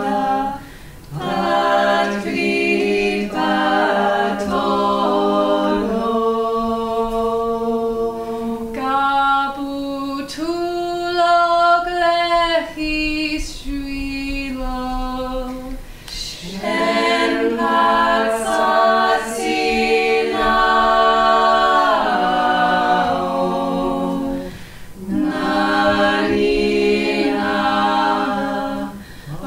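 Small vocal ensemble singing a Georgian polyphonic song a cappella, several voices in close harmony over a held low drone note. The singing pauses briefly between phrases about a second in, around sixteen seconds, and near twenty-five seconds.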